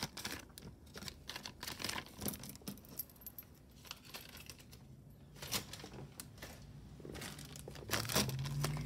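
Light clicking and jingling of a metal-and-bead costume bracelet and its number tag being handled, picked up and set down on a tabletop, with a little rustling.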